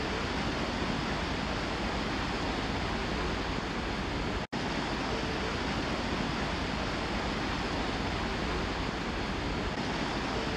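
Steady rushing noise of wind and sea water, with a split-second dropout about four and a half seconds in where the sound cuts.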